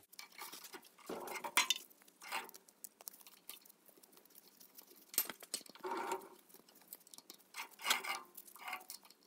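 Light metallic clinks, taps and scrapes of a four-jaw lathe chuck being handled as it is fitted to the lathe, with the rustle of a work glove. The sounds come in short scattered bursts.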